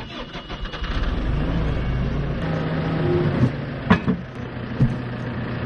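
JCB diesel engine revving up and holding at raised revs while it works. Two or three sharp knocks come in the second half.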